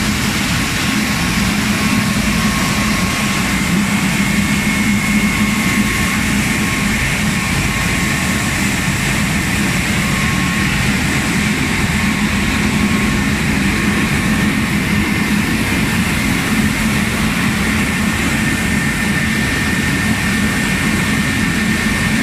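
Rice mill machinery running: electric motors and milling machines making a steady mechanical din, with a constant low hum and fainter high whines over it.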